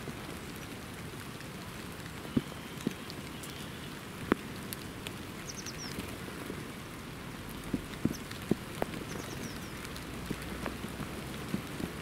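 Steady rain falling on wet foliage and a tabletop, with a handful of sharp, louder taps scattered through. A few faint, short, high bird chirps, including a quick run of four falling notes about five seconds in.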